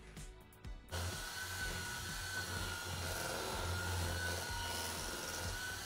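Electric hand mixer running at a steady speed, its beater whisking thick sunflower seed butter in a metal bowl. The motor starts abruptly about a second in, with a steady whine that wavers slightly in pitch over a low hum.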